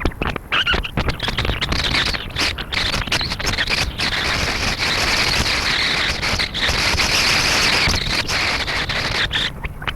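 Wind buffeting the camera microphone over the road noise of a moving trike, with many short knocks and rattles. A steady hiss grows stronger in the middle and eases near the end.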